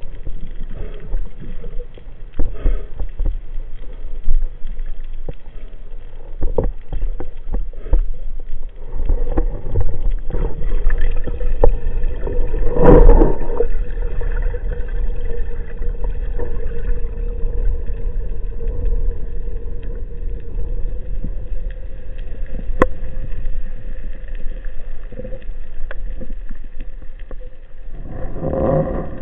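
Underwater sound of a freedive for spearfishing: a steady low rumble of water around the camera, with scattered clicks and knocks and one louder burst about thirteen seconds in.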